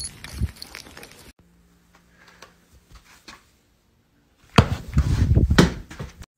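Handling noise: rubbing and a few knocks, loudest for about a second and a half near the end, with a quiet stretch with a faint low hum before it.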